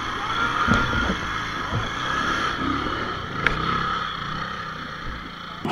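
Bajaj Pulsar 220's single-cylinder engine running under throttle as the motorcycle works its rear wheel through a deep mud rut, with a couple of short sharp knocks.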